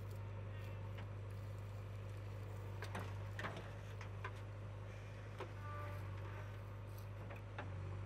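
JCB 3DX backhoe loader's diesel engine running with a steady low drone while the backhoe digs and swings a loaded bucket, with a few short sharp knocks about three seconds in and a couple more later.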